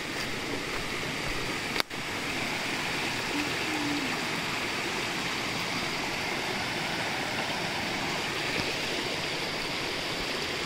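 Small woodland stream running steadily over rocks, with a single sharp click about two seconds in.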